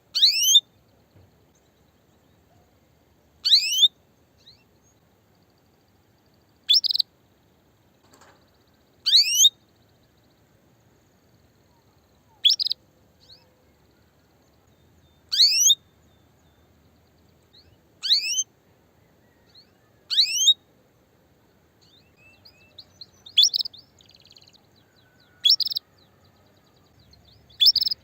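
Female canary calling: short, high chirps repeated about every two to three seconds, most of them sweeping quickly downward in pitch. It is the call of a hen ready to breed, calling to males.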